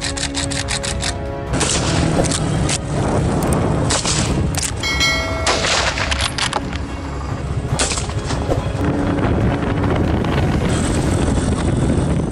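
Cinematic background music with loud booms, and a rapid run of sharp cracks in the first second and a half.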